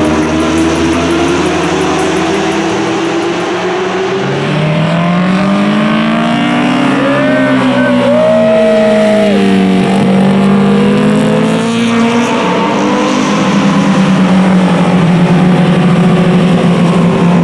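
Superbike racing motorcycles going past on track at high revs, several engines overlapping, each one's pitch rising and falling as it passes.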